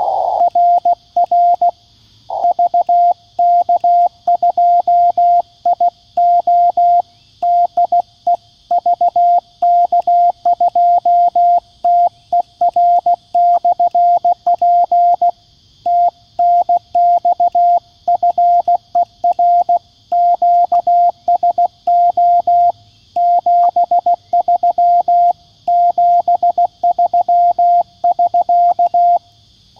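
QCX-mini CW transceiver's sidetone from a small speaker, keying Morse code at about 16 words per minute in one clean, steady pitch. It sends "RR VK2IO DE VK2TER/P" and then the sign-off "TNX FER QSO 73 73 SK", closing the contact, and stops just before the end.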